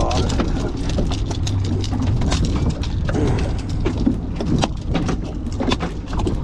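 Boat under way: a steady low engine rumble with irregular knocks and clatter.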